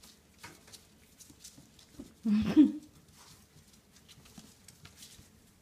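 Small paws and claws of five-week-old Coton de Tulear puppies pattering and clicking on a tile floor as they scuffle over a toy, with one short, loud puppy yelp about two seconds in.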